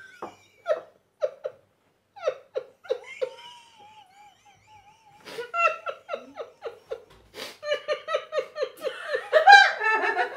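Two men in a fit of laughter: scattered breathy bursts at first, then a long run of rapid pulsing laughs, about four a second, that grows louder near the end.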